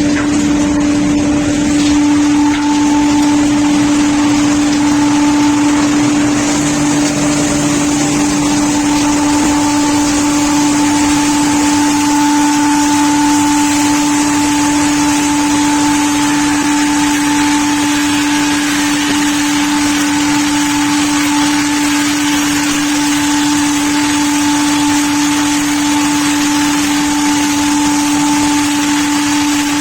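Gelikon SPT-280t log milling and multi-blade circular saw machine running, with its electric motors and spinning side cutters and saw blades giving a loud, steady mid-pitched drone over a constant hiss.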